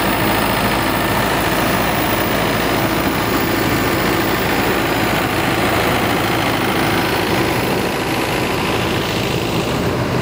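Engine of an old farm mowing machine running steadily, heard close up, easing off slightly near the end.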